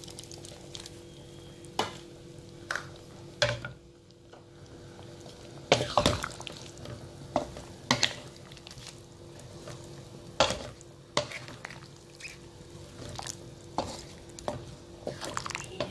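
Spatula stirring and scraping through chicken curry in a pan, folding in the freshly added coconut curry premix, with irregular scrapes and knocks over a steady low hum.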